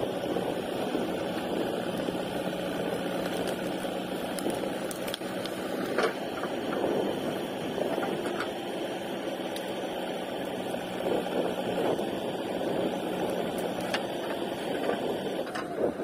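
JCB 3DX backhoe loader's diesel engine running steadily as the backhoe arm digs out brush and roots, with a few short sharp knocks, the loudest about six seconds in and again near the end.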